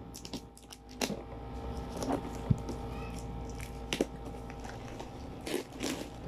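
Plastic shrink-wrap on a cardboard product box being picked at and peeled by hand, giving irregular crinkles, crackles and clicks.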